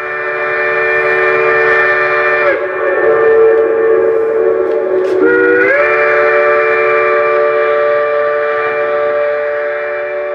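Multi-chime steam train whistle sounding one long chord. Its pitch sags about two and a half seconds in and glides back up about three seconds later, then holds steady.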